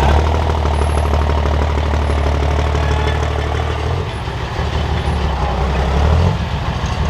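Diesel pulling truck's engine running loud and steady, easing off briefly about four seconds in and again near the end.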